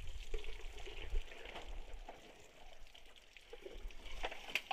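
Water being poured from plastic bottles into a hose, trickling and splashing faintly onto wet mud, with a few small knocks near the end.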